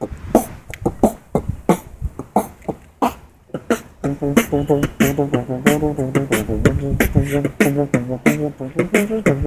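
Beatboxing with hands cupped over the mouth: a quick beat of mouth-made drum sounds. About four seconds in, a voiced low bass line that moves in pitch joins the beat.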